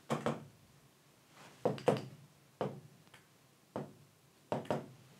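A string of about eight short taps and knocks on a large touchscreen display as it is operated by hand, some coming in quick pairs, at irregular intervals.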